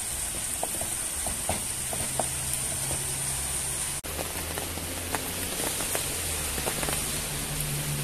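Sliced onions sizzling in oil in a frying pan, with scattered small ticks and pops as they fry.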